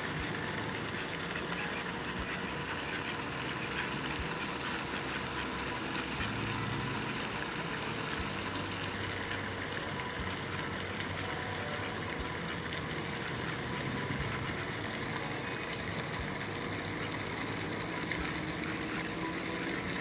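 Steady outdoor background noise with no distinct event, and a low hum that grows stronger about six seconds in.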